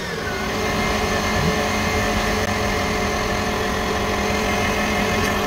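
Electric stand mixer motor coming up to speed, then running with a steady whine as its flat beater mixes cream cheese and sugar in a steel bowl until the sugar melts.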